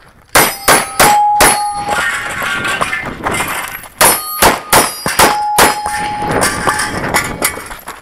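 CZ SP-01 pistol fired in two quick strings, about four shots and then about five more, with the steel silhouette targets clanging and ringing as they are hit.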